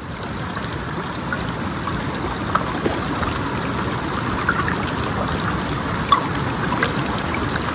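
Shallow mountain stream running over rocks, heard right at the water's edge: a steady rush with scattered small gurgles and splashes.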